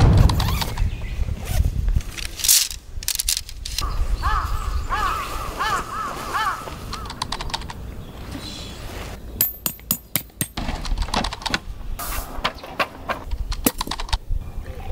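A crow cawing, a quick run of about five or six calls a few seconds in, among scattered clicks and knocks.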